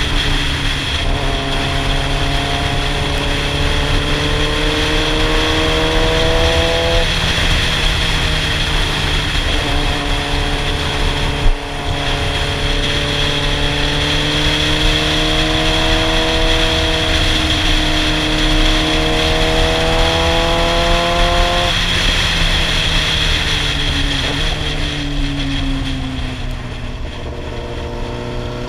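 Inline-four engine of a Yamaha sportbike running on the road, its pitch climbing slowly for several seconds at a time and dropping back twice, under heavy wind rush on the helmet-mounted camera. One short sharp knock partway through.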